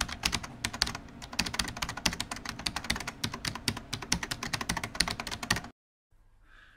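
Computer keyboard typing sound effect: a rapid, uneven run of key clicks that stops abruptly about a second before the end, as title text is typed onto the screen.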